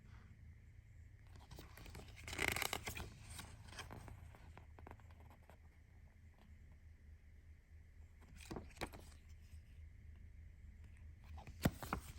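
Hands handling CD packaging: a brief rustling scrape about two seconds in, then a few light clicks and a sharp tap near the end.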